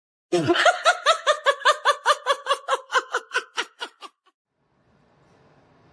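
A high-pitched laugh: a quick run of 'ha' pulses, about four or five a second, that slows and fades out about four seconds in.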